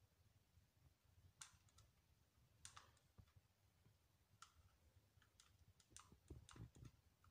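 Faint, irregular clicks of buttons being pressed on a kitchen appliance's control panel while its clock is being set, coming more often toward the end.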